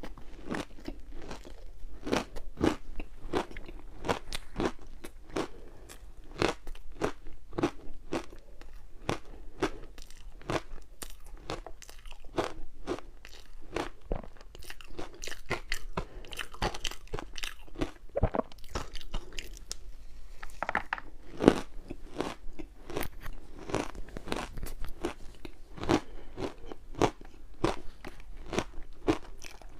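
Ice being bitten and chewed close to the microphone: a fast, irregular run of sharp crunches, with one especially loud crunch about two-thirds of the way in.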